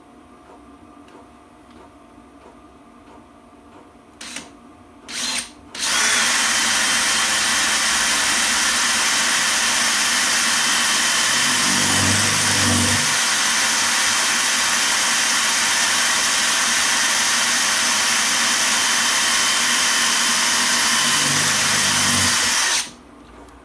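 Cordless drill drilling a hole into the steel bearing race inside a Freelander 2 rear differential casing. Two short blips of the trigger come first, then the drill runs steadily under load for about seventeen seconds and stops abruptly, its note deepening briefly twice as the bit bites.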